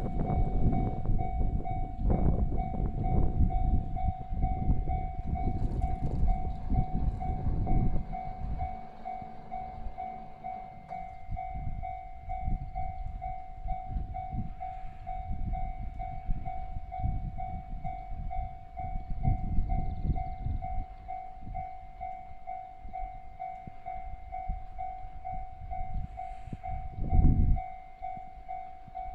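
Japanese level crossing warning bell ringing, an even, repeating electronic 'kan-kan' that sounds while the crossing is closed for an approaching train. Under it runs an irregular low rumble, loudest for the first eight seconds and again briefly near the end.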